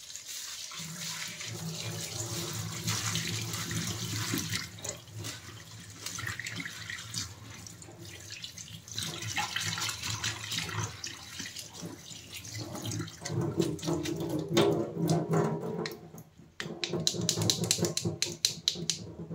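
Tap water running into a plastic mesh strainer of poha (flattened rice) over a stainless steel sink, splashing as the flakes are rinsed by hand. The flow breaks off briefly about 16 seconds in, then the splashing picks up again.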